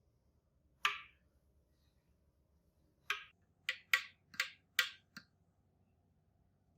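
Sharp clicks or taps, like small hard objects being handled: one about a second in, then a quick run of six a little past the halfway mark.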